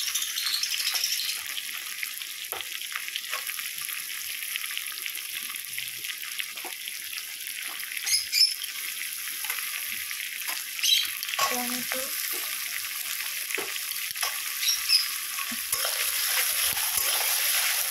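Sliced onions sizzling in hot oil and ghee in a metal kadai, with a flat metal spatula scraping and clinking against the pan now and then as they are stirred.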